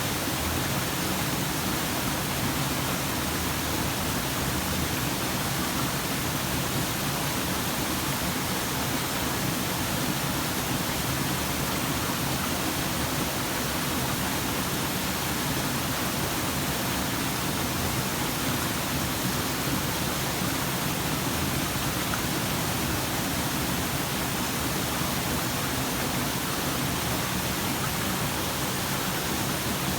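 Waterfall: a steady, unbroken rush of falling water, spread evenly from deep to high pitches.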